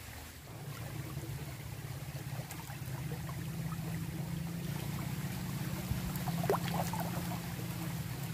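Small, murky stream flowing and rippling over its bed, a steady low rushing water sound that comes in about half a second in, with a few faint clicks later on.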